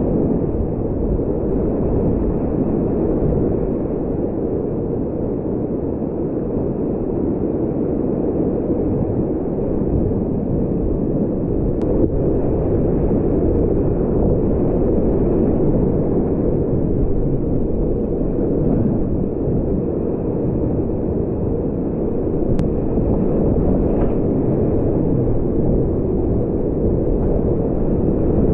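Whitewater rapids rushing and churning around a kayak, a steady, loud, muffled roar of water with little treble.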